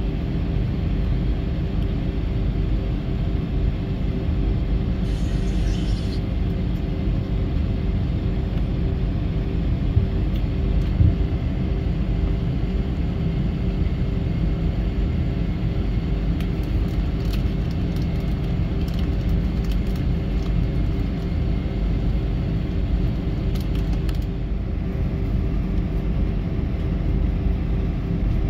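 Steady low rumble of an Airbus A320's jet engines at idle, heard inside the passenger cabin on the ground, with a steady hum running through it.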